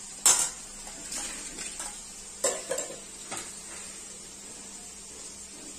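Metal kitchen utensils clinking and knocking against steel pots and bowls: half a dozen sharp knocks in the first three and a half seconds, the first one the loudest, then quieter.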